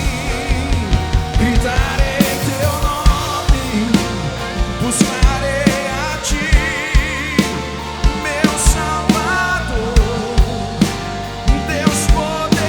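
Live band music from a drum kit, bass, guitars and keyboards, with the drums hitting a steady beat about twice a second under held chords and a wavering melody line.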